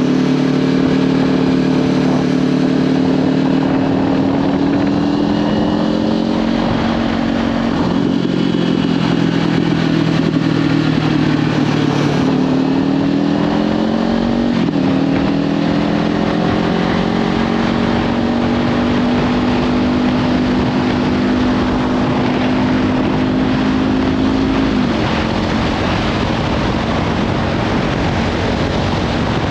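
Kawasaki Ninja 500's parallel-twin engine through a Leovince slip-on exhaust, riding at road speed. The engine note climbs and falls with the throttle, drops sharply about halfway through at a gear change, then climbs slowly again and eases off near the end. Wind buffets the microphone throughout.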